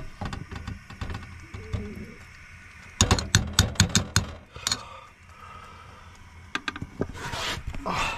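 Metal spoon stirring a thick chicken and mushroom sauce in a stainless steel saucepan, scraping and knocking on the pan. About three seconds in there is a quick run of sharp clinks of spoon on pan, and near the end a brief rustle.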